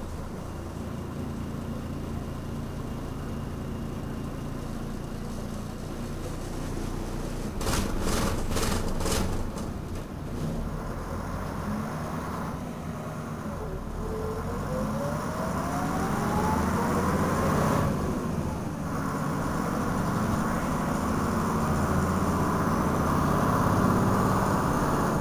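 1978 Berliet PR100 MI city bus's MIPS diesel engine running steadily as the bus drives. There are a few sharp rattles about 8 seconds in. From about 14 seconds in, a rising whine climbs for some four seconds as the bus picks up speed, then breaks off, and the engine pulls on.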